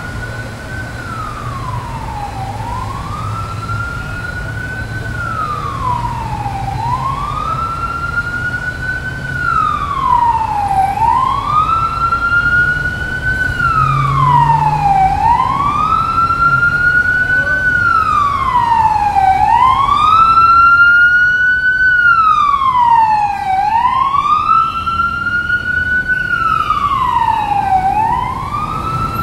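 Emergency-vehicle siren wailing, each cycle rising slowly and falling back quickly about every four seconds; it grows louder towards the middle and drops back near the end. Under it, a steady hiss of traffic on a wet road.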